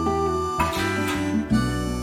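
Background music in an instrumental passage between sung lines, led by acoustic guitar.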